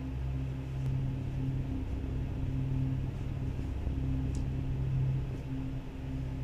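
Steady low droning hum with a low rumble underneath.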